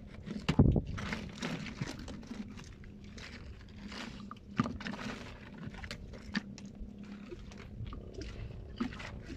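Sea urchins and shellfish clicking, scraping and knocking against one another in a mesh net basket as a hand rummages through the catch: irregular crunchy knocks, the loudest about half a second in.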